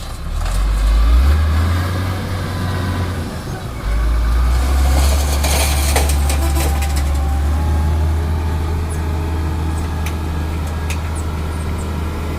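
Motor grader's heavy diesel engine running under load with a deep, steady rumble that surges louder about four seconds in, with a little metallic rattle around the middle.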